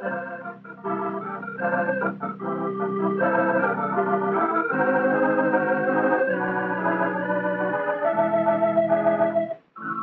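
Background film-score music of held, changing chords, which cuts out briefly just before the end.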